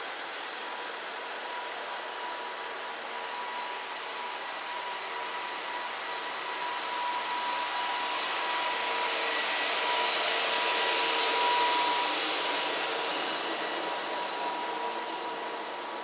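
KiHa 110 series diesel railcar departing and passing close by at low speed: a steady rushing drone of the underfloor engines and running gear with a thin steady whine. It builds to its loudest a little past the middle, then eases off.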